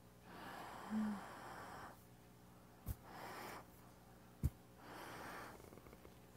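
A man breathing in through the nose in three stages to fill the lungs completely: three soft, separate inhalations with short pauses between them. There are two faint clicks in the gaps.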